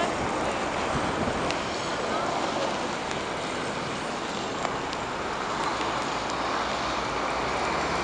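Steady rush of storm wind and street traffic, with the diesel engines of a road grader and a front loader with a snow plow running; a low engine drone comes up near the end.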